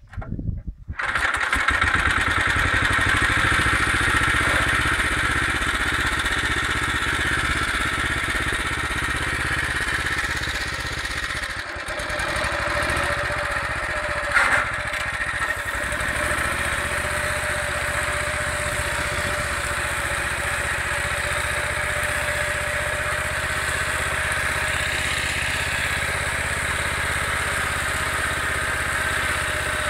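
Motor Sich MB-6 walk-behind tractor's engine starts about a second in and runs steadily, driving a KRN-2S rotary mower through alfalfa, with a steady whine from the mower drive. One sharp knock sounds about fourteen seconds in.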